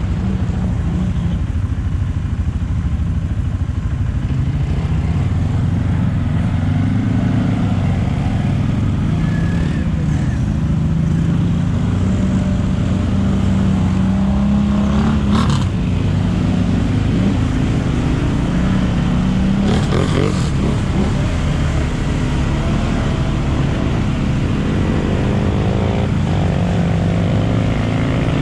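ATV engine running steadily at low revs, its pitch wavering up and down as the throttle changes, with short sharp knocks or splashes about 15 and 20 seconds in.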